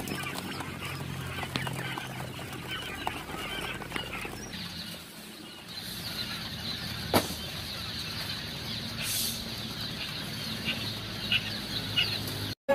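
A flock of quail chirping and stirring: many short high calls scattered over a busy rustle of birds moving about.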